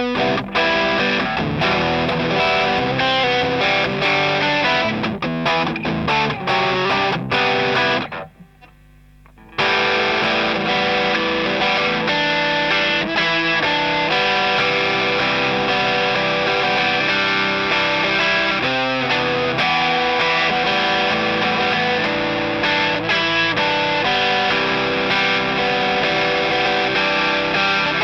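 Electric guitar played through the DIYGP Night Drive, a Love Pedal Eternity-style overdrive pedal, giving a driven, gritty tone across chords and single-note lines. The playing stops for about a second and a half around eight seconds in, then resumes with long ringing chords.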